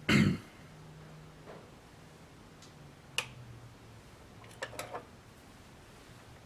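Hands handling small soldering-iron parts and tools: a short loud knock at the start, a single sharp click about three seconds in, and a quick run of small clicks near five seconds, over a faint steady low hum.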